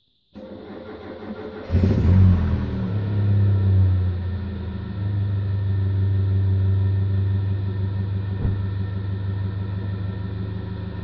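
A car engine starting up about two seconds in with a brief rev, then idling steadily, heard from inside the car's cabin.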